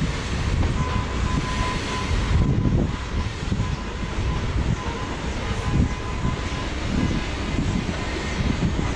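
CSX freight train rolling past, its cars rumbling steadily over the rails.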